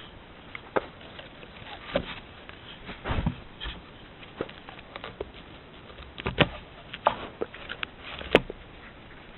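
Gray wolves right against a trail camera, their fur rubbing and brushing on the camera housing, with irregular sharp knocks and scuffs as they bump and nose it. The sound is picked up by the trail camera's own small, muffled microphone.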